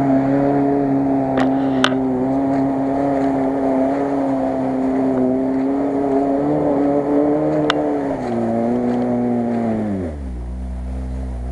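VAZ 2121 Niva's four-cylinder petrol engine held at high, steady revs while the car ploughs through deep mud, with a few sharp clicks. Near the end the revs drop in two steps to a low, steady note.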